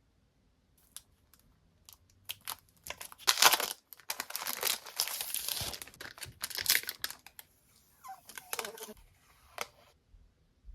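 Packaging being handled and torn open: irregular rustling, crinkling and tearing, with a few clicks at first, densest in the middle and dying away near the end.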